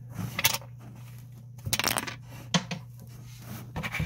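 Small hard plastic pieces, LEGO bricks, clicking and clattering as they are handled: a few separate clicks and one longer rattle about two seconds in, over a steady low hum.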